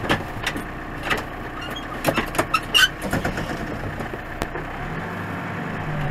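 Several sharp metal clanks and clicks, then the backhoe's engine drone settles in steadily about five seconds in.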